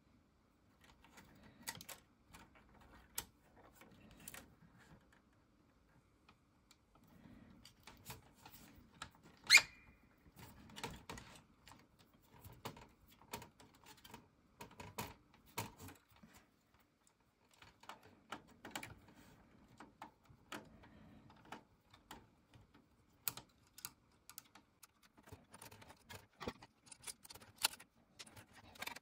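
Faint clicks, taps and rustles of fingers and a small tool handling the wiring and motor inside an opened cassette deck's metal chassis, with one sharper click about ten seconds in.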